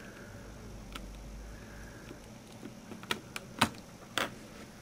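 Small hard clicks and taps from a Nokia N73 phone and a small screwdriver being handled during reassembly: a faint click about a second in, then a cluster of four sharper clicks in the second half, one louder than the rest.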